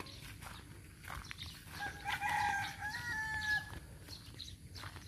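A rooster crows once, a single call of nearly two seconds about two seconds in, over scattered faint clicks and rustles.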